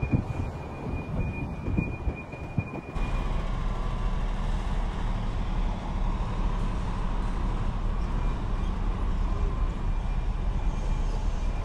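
Wind buffeting on the microphone for about three seconds, then, after an abrupt change, a heavy truck's diesel engine running with a steady low rumble.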